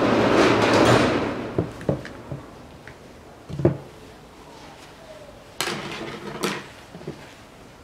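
Hands working on a plastic coolant expansion tank: a rustling swell at the start, then scattered light clicks and knocks of the tank and tools on the table, the loudest about three and a half seconds in, with a short cluster of knocks and rustling near the end.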